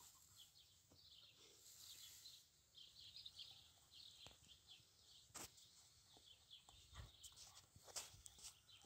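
Near silence outdoors, with faint small-bird chirping throughout and a few soft clicks, the sharpest about five seconds in and near the end.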